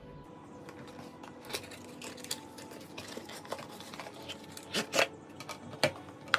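Unboxing handling noises: a few light clicks and taps as a small cardboard box is slid open, then sharper knocks about five and six seconds in as a plastic power adapter is set down on a wooden table.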